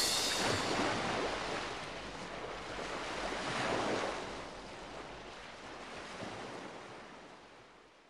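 Sea waves washing in, an even rush that swells twice and fades out near the end.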